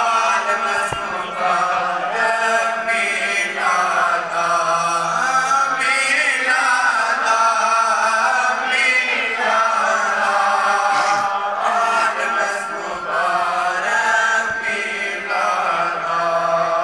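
Male voices chanting a naat, an Islamic devotional hymn in praise of the Prophet, in long melodic phrases.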